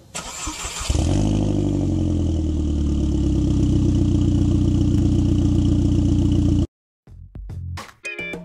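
Car engine starting: it cranks and catches about a second in with a brief rev, then drops back to a steady idle that cuts off abruptly. Music begins near the end.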